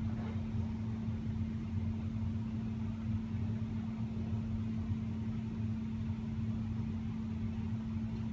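Steady low mechanical hum with a constant pitched tone, running evenly throughout.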